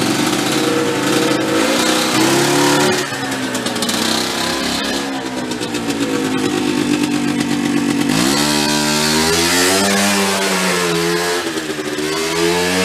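Small golf cart engine running as the cart drives off. Its note drops about three seconds in, climbs steeply about eight seconds in, and then rises and falls with the throttle.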